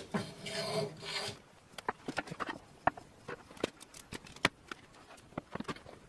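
A bicycle truing stand and wheel being handled and adjusted: about a second of scraping and rubbing, then a scattering of irregular sharp clicks and light taps.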